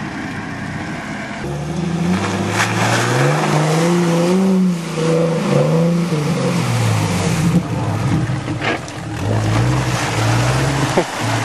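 Jeep engine revving hard, its pitch climbing and dropping again and again as the throttle is worked to push through a deep muddy water hole, with water and mud splashing around it. The revs first climb about a second and a half in.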